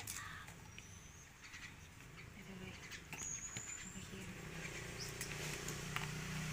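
Faint clicks of a small knife splitting termite mushrooms over an aluminium pot, with a few short high chirps. A low hum grows louder near the end.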